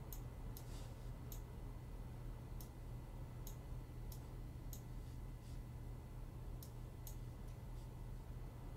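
Computer mouse clicking, about a dozen sharp clicks at irregular intervals, over a steady low hum.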